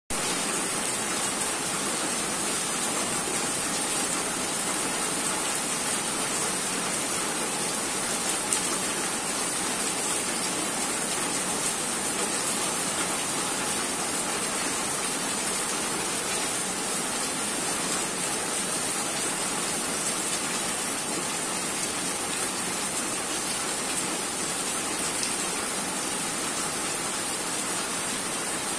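Heavy rain falling steadily, an even hiss of many drops with no let-up, with one sharper drop tick about a third of the way through.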